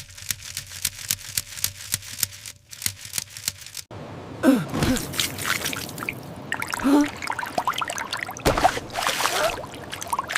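A LEGO Technic water pump running, first with a fast, even run of sharp plastic clicks for about four seconds, then with water gurgling and splashing through it.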